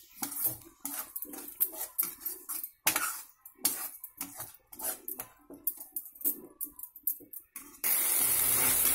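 Spatula scraping and knocking against a non-stick wok while stirring a thick sauce mixture, about three strokes a second. Near the end a steady sizzle of frying starts.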